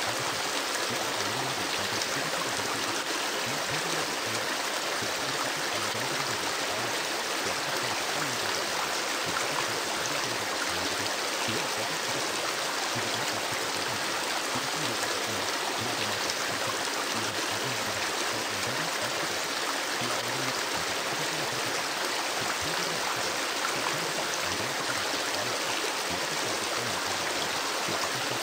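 Recorded river ambience: steady rushing and flowing water.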